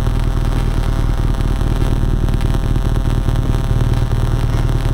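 BMW R nineT's air/oil-cooled boxer twin running steadily at low revs, a smooth even pulse.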